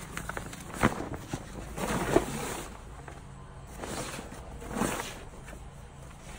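Heavy-duty fabric patio chair cover rustling in bursts as it is handled and pulled down over a stack of metal patio chairs, with a sharp knock about a second in.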